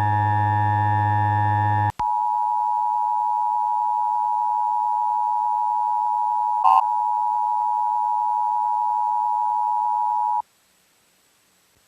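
A sustained synthesizer chord for about two seconds, then the Emergency Alert System attention signal: a steady two-tone electronic tone lasting about eight seconds, with a brief blip partway through, cutting off abruptly into silence.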